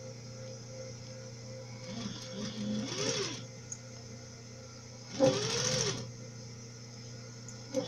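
Sewing machine stitching fabric and clear plastic in two short bursts of about a second each, the motor speeding up and slowing down each time, as the seam is worked slowly around a rounded corner.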